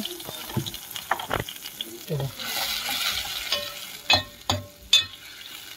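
Onion-tomato masala sizzling in a stainless steel pot while a steel ladle stirs it, scraping around the pot, with three loud sharp knocks of the ladle against the pot in the second half.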